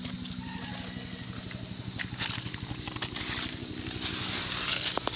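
A small engine hums steadily in the background while a high insect buzz holds steady, and from about two seconds in, footsteps crunch on dry leaves and stones.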